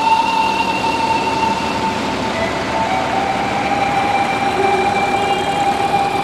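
Engines of vintage tractors running as they drive past at parade pace, the nearest a small red tractor. A steady whine sits over the engine noise and drops slightly in pitch about halfway through as the tractor goes by.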